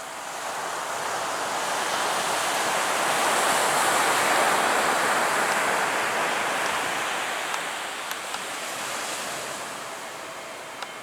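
Surf washing onto the beach: a broad hiss of breaking water that swells up over a few seconds and slowly fades away.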